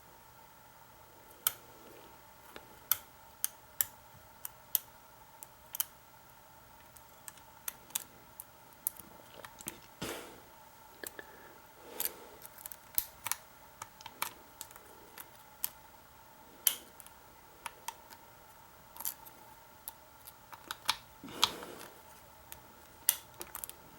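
Lock pick and tension wrench working the pins of a Master Lock 6230 padlock during single pin picking: irregular sharp metallic clicks as pins are lifted and set, with a few short scrapes of the pick in the keyway.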